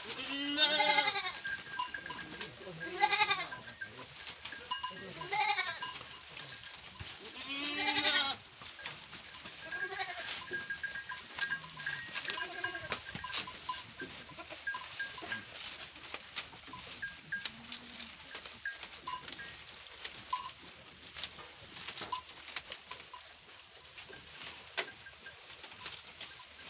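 Goats bleating again and again, with several loud bleats in the first eight seconds and fewer, weaker ones after. Beneath them there is a steady patter of clicks and rustling as the herd pulls at and chews leafy fodder.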